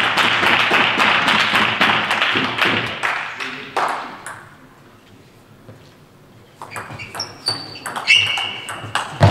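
Clapping and voices in a sports hall fading away, then from about six and a half seconds in a table tennis rally: the ball clicking off the bats and the table in quick succession, with a few short shoe squeaks on the floor.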